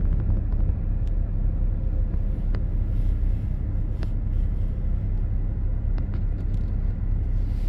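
Strong storm wind buffeting the microphone in a steady low rumble, with a few sharp ticks scattered through it.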